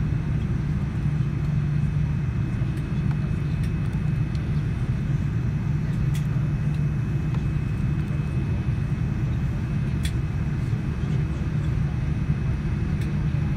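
Steady cabin noise inside a Boeing 787-9 taxiing with its engines at idle: a low, even hum with a faint steady high whine over it, and a couple of small clicks partway through.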